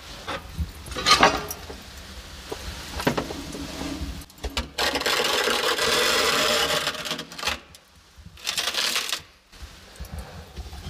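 Metal baking tray clattering and scraping as it is pushed into a brick wood-fired oven, with sharp knocks about a second in, a long scrape in the middle and a shorter one near the end.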